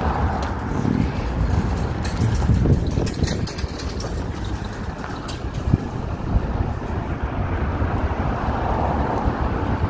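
Busy city street traffic: cars and trucks passing with a steady low rumble of engines and tyres, and a few brief knocks.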